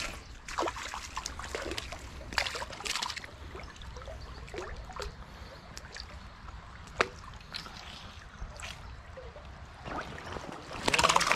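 Shallow stream trickling and splashing, an uneven rush of water with many small irregular splashes, a single sharp click about seven seconds in, and a louder surge of splashing near the end.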